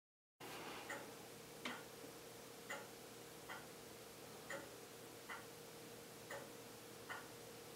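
Faint, regular ticking, about one tick a second, over a steady low hum. It starts abruptly about half a second in.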